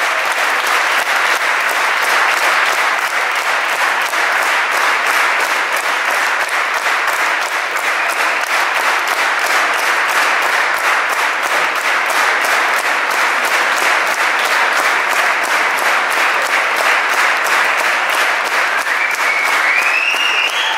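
Concert audience applauding steadily, the clapping falling into an even beat of about three claps a second. A rising whistle comes near the end.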